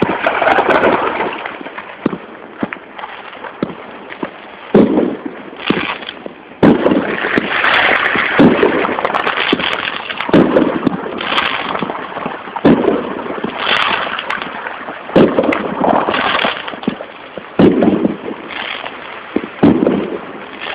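Fireworks and firecrackers going off in quick succession: loud bangs every second or two over a continuous crackle of many smaller ones.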